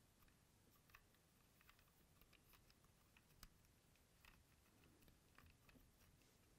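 Near silence with faint, scattered light clicks of small hard plastic toy helicopter parts being handled and pressed into place, the sharpest about halfway through.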